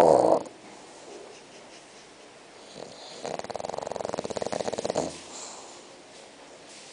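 A six-month-old bulldog puppy snoring in its sleep. One snore trails off just as the sound begins, then a second, vibrating snore of about two seconds starts around three seconds in, with soft breathing in the pauses.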